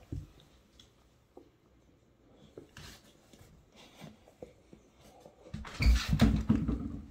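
A puppy and an adult dog play-wrestling on a hard floor: scattered soft knocks and scuffles, then a louder burst of scuffling about six seconds in.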